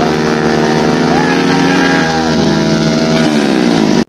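Motorcycle engine held at high revs while its rear wheel spins in river water, throwing up spray. The pitch shifts partway through and falls near the end, then the sound cuts off suddenly.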